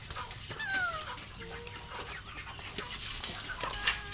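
A chicken gives one falling call about a second in, amid scattered small clicks and rustling.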